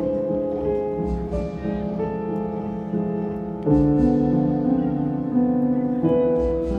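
Background music: an instrumental melody of held notes that change every second or so.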